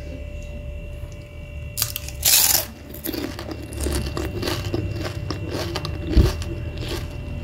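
A crisp fried chicken wonton bitten with a loud crunch about two seconds in, then chewed with a run of smaller crackly crunches. A low thump comes near the end.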